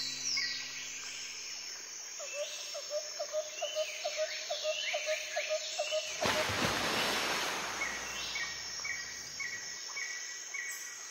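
Nature ambience: many short, rapidly repeated chirps and calls, with a swell of rushing noise about six seconds in.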